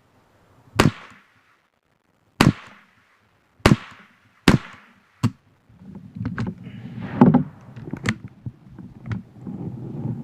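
Five gunshots from a semi-automatic .22LR firearm, spaced about one to one and a half seconds apart, the fifth shorter and thinner than the rest. From about six seconds in there is rustling and handling noise with a few smaller clicks.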